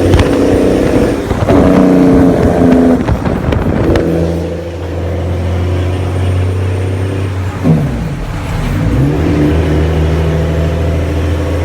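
Big Mack truck's diesel engine running with a loud, deep growl; its pitch shifts in the first few seconds, then drops sharply about eight seconds in and climbs back up as the revs fall and rise again.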